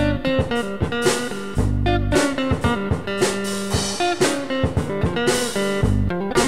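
Background music: plucked guitar with a bluesy feel over a steady drum-kit beat.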